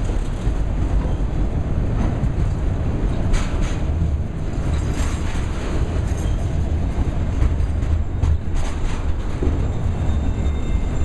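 Tail end of a freight train of bi-level auto rack cars rolling past at speed: steel wheels on rail with a steady low rumble and irregular clicks as the trucks cross rail joints. The last car goes by in the second half.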